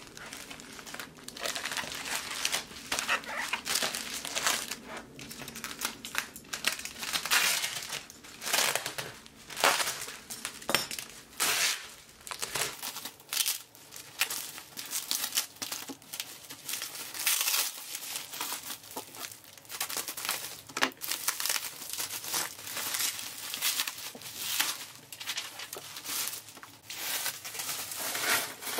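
Bubble wrap and plastic packaging crinkling and rustling as they are pulled off a parcel by hand, in uneven rustles with short pauses.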